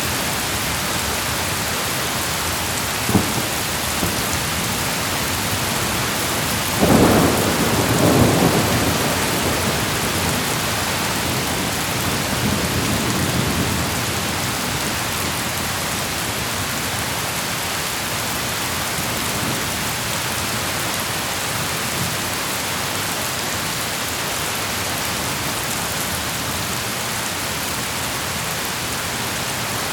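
Heavy rain falling steadily, with a short sharp crack of thunder about three seconds in and a loud thunderclap about seven seconds in that rumbles on for several seconds before fading back under the rain.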